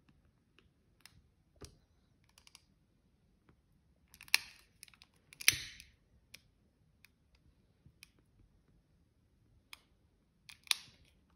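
Long-neck utility lighter clicking as its trigger is worked to light candles: scattered light clicks, with louder snaps about four and five and a half seconds in and again near the end, the first two each followed by a short hiss.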